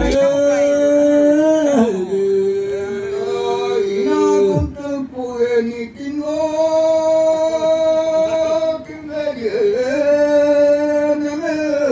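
Men singing a Nyishi traditional buya song into microphones: long held notes, each phrase ending in a downward slide.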